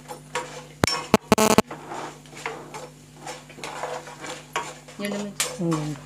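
A metal spoon stirring and scraping a tempering of dals and peanuts frying in oil in a metal kadai, with repeated clinks against the pan and a few loud ringing clangs about a second in.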